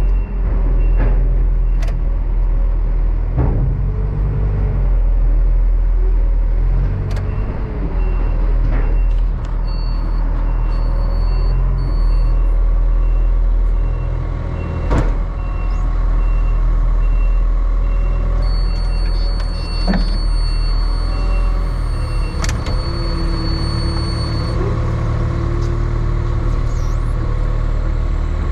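John Deere 3420 telehandler's engine running under load, heard from inside the cab, its revs rising and falling as the loader works, with a few sharp clunks. A warning beeper repeats steadily for about ten seconds in the middle, and a high steady whine comes in for several seconds later on.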